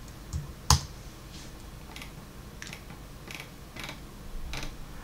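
Scattered light clicks of a computer keyboard and mouse, with one sharper click just under a second in.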